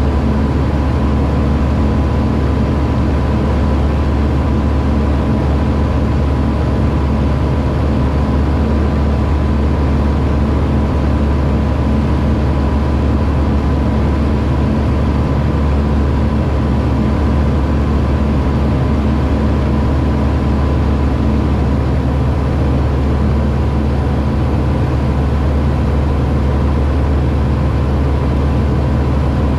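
Aquila A210 light aircraft's Rotax 912 S four-cylinder engine and propeller running at steady power in flight, a loud, even drone that stays the same the whole time.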